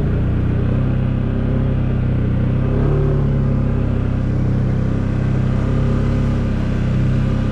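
Can-Am Outlander 700 ATV's single-cylinder Rotax engine running under way at a steady throttle, its note rising a little about three seconds in.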